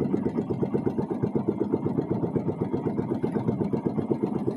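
Small boat engine running steadily at low speed, an even rapid beat of about ten pulses a second.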